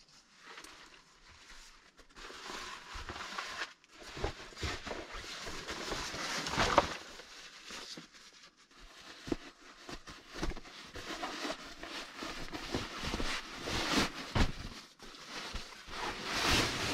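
Irregular rustling of fabric and nylon gear being handled, a backpack rummaged through and a sleeping bag pushed onto a wooden plank bunk, with a few soft knocks. It starts faintly and is loudest about seven seconds in and again near the end.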